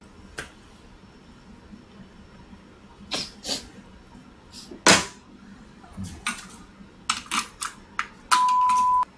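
Scattered light knocks and clicks of objects being handled on a tabletop, with a cluster of quick ones about seven seconds in. Near the end comes a steady high beep lasting under a second.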